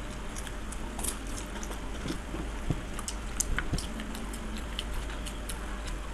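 Close-miked eating of chowmein and fuchka (panipuri): chewing and mouth sounds broken by many small crisp clicks and crunches as the fried puri shells are cracked, over a steady low hum.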